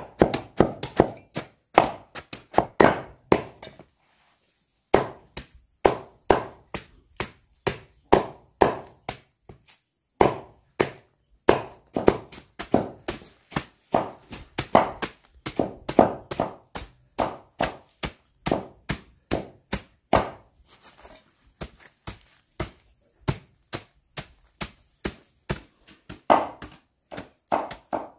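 Knife chopping plant stalks, with quick, steady strokes a few times a second and short pauses about four seconds in and again past the twenty-second mark.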